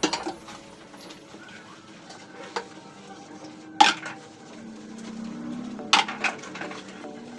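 Kitchen utensils clinking against pots and dishes, a handful of separate sharp clinks with the loudest a little under four seconds in.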